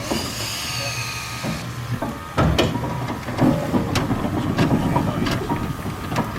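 1921 Fowler BB steam ploughing engine running, its winch working with a steady mechanical rumble and repeated clanks and knocks. A hiss in the first second and a half, and a louder clank about two and a half seconds in.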